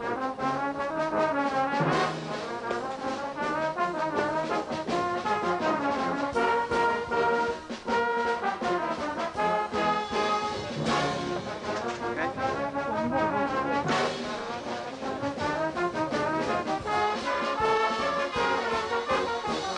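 Brass band music: a tune played by several brass instruments together, with occasional percussive hits.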